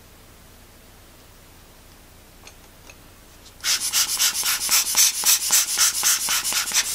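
Rubber hand air blower squeezed rapidly to blow dust off a camera lens element: a fast run of short hissing puffs, about six or seven a second, starting about three and a half seconds in.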